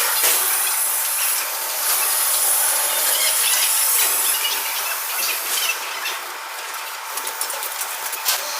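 Steady hissing noise with a faint constant tone and scattered small clicks, typical of metalworking.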